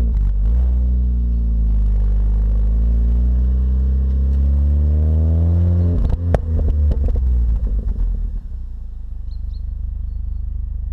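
Supercharged 1.6-litre four-cylinder engine of a stock Mini Cooper S R53 running at steady, raised revs. About six seconds in, a short burst of sharp crackles and uneven level comes in as the revs fall, and it then settles to a lower, even idle.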